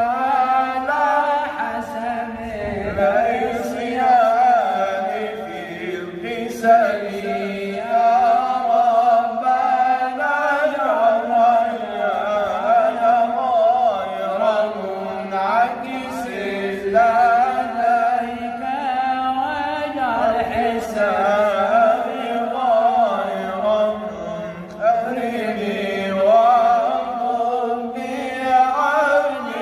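A male voice chanting an Arabic devotional ode in praise of the Prophet, in long melismatic phrases with the pitch winding and ornamented, pausing briefly between phrases every few seconds.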